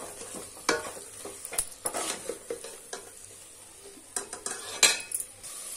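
A perforated steel ladle stirring a thick masala paste in a metal pot: irregular scrapes and knocks of the ladle against the pot, the sharpest about five seconds in. A faint sizzle of the masala frying on a low flame runs underneath.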